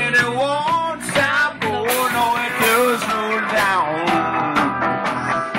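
Live rock band playing: upright piano amplified through a PA, upright bass, drums and electric guitar, with a wavering lead melody line over them.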